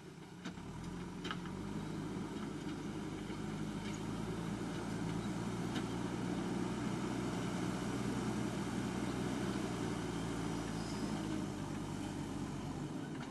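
Diesel engine of a JCB 3DX backhoe loader running steadily under work, picking up about a second in, with a few faint clinks.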